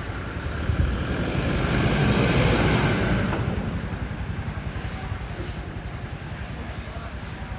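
A motor vehicle going past, its engine and road noise swelling about two seconds in and fading away by the middle, over a steady low rumble.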